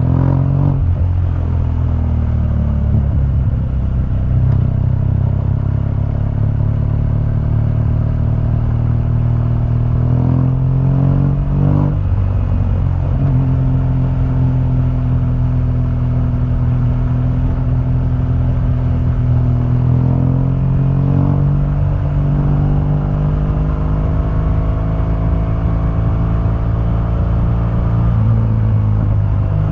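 2015 BMW R1200GS's boxer twin running through its stock exhaust while being ridden. The engine note climbs slowly, then drops at each of several gear changes.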